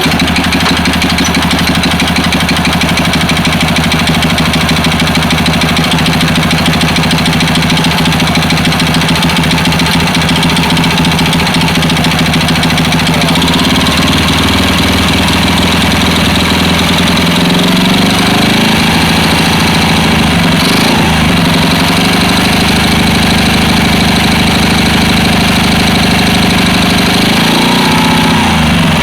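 Honda Super Cub single-cylinder four-stroke engine running with a knocking noise from piston slap: the piston rocking in its bore. It idles steadily, and the engine speed rises and falls a few times around the middle and again near the end.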